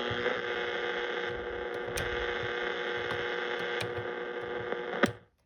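A 1970s Panasonic R-1551 AM radio's speaker giving out steady static and hum with a few held tones, until a sharp click about five seconds in cuts it off.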